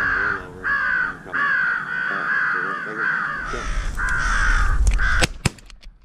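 Crows cawing, about half a dozen harsh caws one after another, with two sharp clicks near the end.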